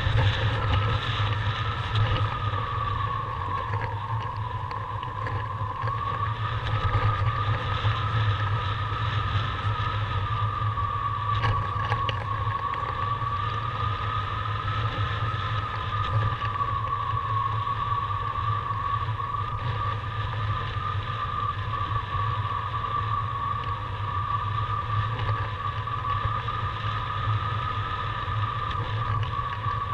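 Airflow rushing over the camera microphone during paraglider flight, a steady low rumble with a continuous whistle that slowly wavers in pitch.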